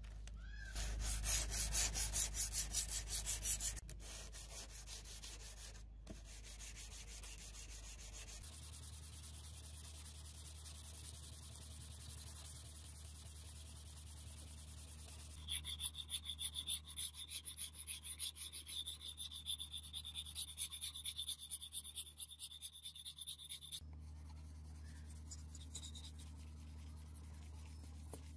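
Sandpaper in a hand-held holder rubbing back and forth along the steel edge of a butcher's cleaver in quick, even strokes, in two stretches: briefly near the start and for about eight seconds past the middle.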